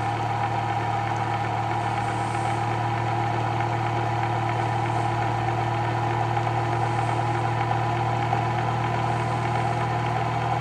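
Bedini SSG pulse motor running, its magnet rotor spinning between the pulsed coils with a steady hum.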